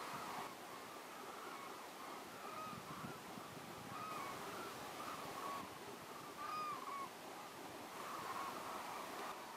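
A large flock of cranes calling together, mostly hooded cranes with white-naped cranes among them: many overlapping short calls that rise and fall, one after another without a break.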